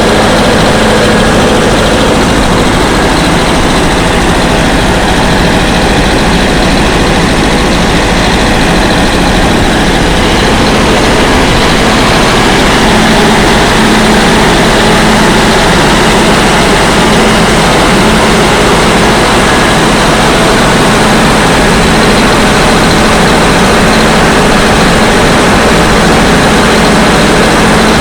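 Air compressor machine used for borewell development running loudly and steadily, a constant engine drone with a steady hum.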